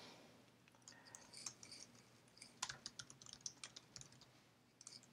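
Faint typing on a computer keyboard: an irregular run of key clicks about a second in, lasting some three seconds, with a couple more near the end.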